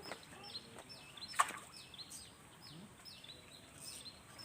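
A bird's short high chirp, falling in pitch, repeated steadily about twice a second over faint background noise; a single sharp click about one and a half seconds in.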